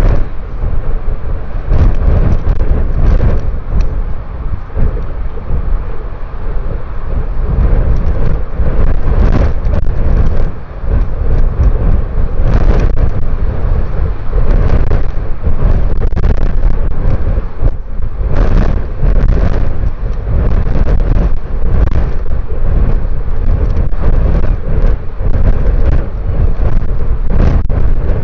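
Strong wind buffeting the microphone: a loud, continuous low rumble with frequent sharper gusts every second or so.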